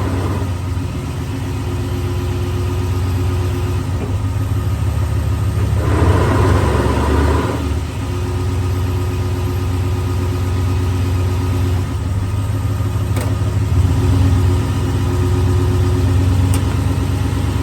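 2002 Toyota Tundra's 4.7-litre V8 running steadily with a grinding noise, a noise the owner hears only with the transmission in park or in first gear. A louder, rougher stretch lasts about a second and a half, around six seconds in.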